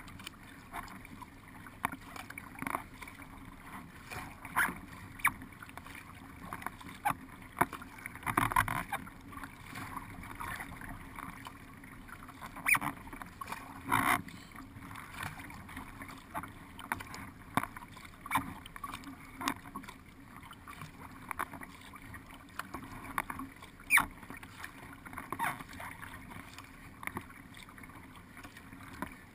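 Water rushing and splashing along the hull of a paddled race boat as it moves upstream at speed, with irregular sharp splashes and knocks from the paddle strokes.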